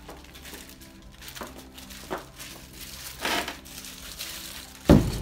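Clear plastic wrapping on a truck running board crinkling in short bursts as the board is lifted and handled, then a single heavy thump near the end as the board knocks against something.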